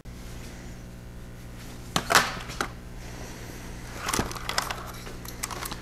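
A plastic automotive fuse panel handled by hand: a few scrapes and knocks of plastic about two seconds in and again around four seconds, over a steady low electrical hum.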